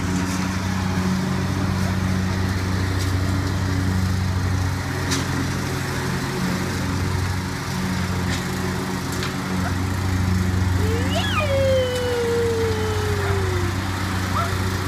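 Small engine of a riding lawn tractor running at a steady speed. About eleven seconds in, a long high call slides down in pitch over a couple of seconds.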